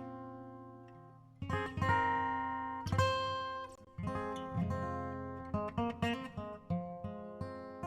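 Background music: acoustic guitar strumming chords that ring out and fade, moving to quicker picked notes about two-thirds of the way in.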